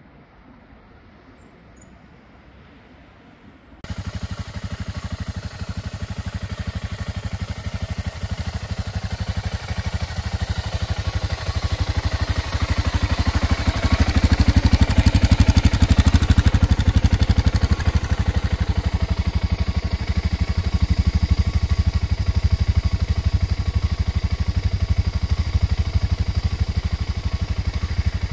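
Single-cylinder four-stroke engine of a 2001 BMW F 650 GS motorcycle running, a fast even pulse of firing strokes with a strong low rumble. It starts suddenly about four seconds in after faint background, grows louder over the next ten seconds, then holds steady.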